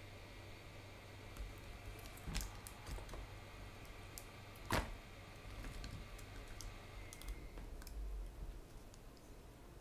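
Scattered faint clicks and taps of small tools and wire being handled, the sharpest about two and a half and five seconds in, over a steady low hum.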